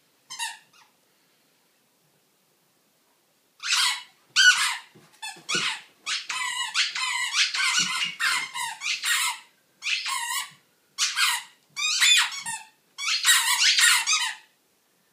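Squeaky dog toy squeaked over and over as a Rhodesian Ridgeback chews it. There is a brief squeak just after the start, then a pause of about three seconds, then a long run of squeaks, some quick and stuttering and some drawn out, that stops shortly before the end.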